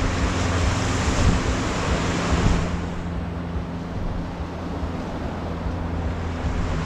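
Small waves washing up and hissing over a sandy shore, with wind buffeting the microphone in a low rumble. The hiss of the wash drops away sharply about two and a half seconds in.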